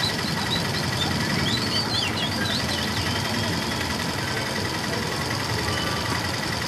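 City street traffic ambience: vehicle engines running and idling in a steady low rumble of traffic. A few high chirps sound in the first couple of seconds.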